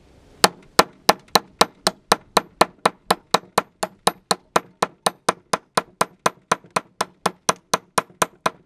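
Hammer rapidly tapping a steel chisel against stone, about four to five sharp, ringing strikes a second. The blows start about half a second in and keep an even rhythm, working at the rock to free a piece embedded in it.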